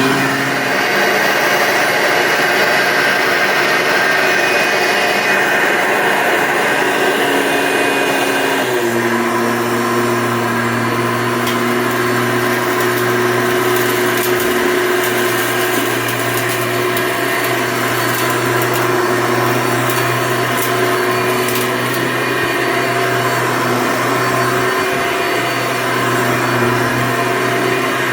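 1993 Hoover Elite upright vacuum cleaner running steadily. Its note changes about nine seconds in, and a few faint ticks come through in the middle.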